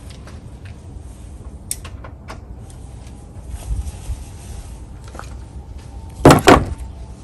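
Faint clicks and taps of hand work in an engine bay, then two loud metallic clanks close together about six seconds in, as tools are handled in a steel toolbox.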